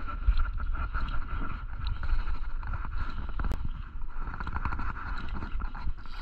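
Spinning reel being cranked on a retrieve: a steady whir with a run of quick ticks from the gears, over a low wind rumble on the microphone.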